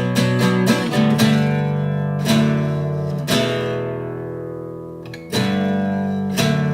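Acoustic guitar strumming chords without singing: a quick run of strokes at first, then single chords struck and left to ring, one fading for about two seconds in the middle before the strumming picks up again.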